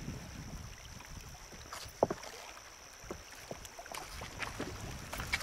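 Small fishing boat on the water: a low rumble of wind and water with scattered light knocks and clicks, the sharpest about two seconds in, over a steady faint high whine.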